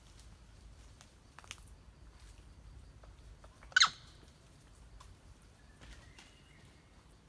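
A monkey gives one short, sharp squeak a little before the middle, over a quiet background with a faint click earlier and a brief thin chirp later.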